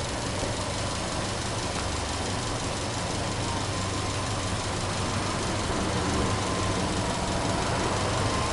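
Subaru Impreza WRX STI hatchback's turbocharged boxer four idling steadily, heard at the open engine bay, growing slightly louder toward the end.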